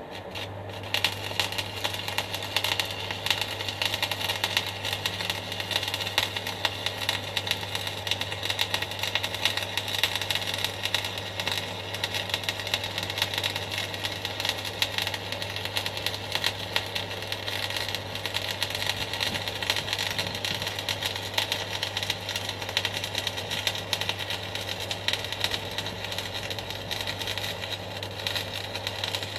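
Stick (MMA) arc welding: the arc strikes just at the start, then crackles steadily over a low hum from the welding machine while a weld bead is run.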